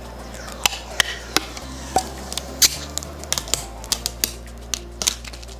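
Acrylic standee pieces being handled and fitted together: irregular sharp plastic clicks and taps, several a second at times.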